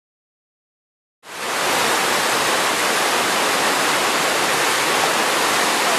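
Whitewater rapids rushing down a man-made whitewater channel: a loud, steady roar of churning water that cuts in suddenly about a second in, after silence.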